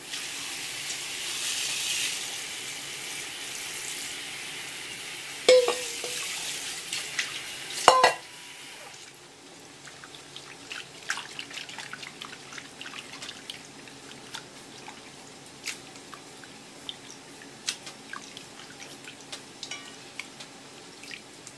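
Tap water running into a stainless steel bowl of boiled asari clam meat for about nine seconds, with two ringing metal knocks along the way. Then hands swish and rub the clam meat in the water with small splashes and clicks as it is rinsed.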